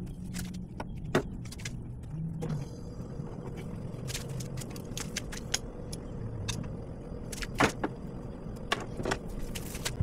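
Irregular light metallic clicks and clinks over a low steady hum.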